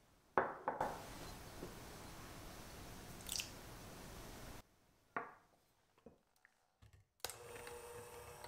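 A few light knocks and ticks of handling around glass bowls. Near the end an electric hand mixer starts and runs with a steady hum as its beaters whip the cream.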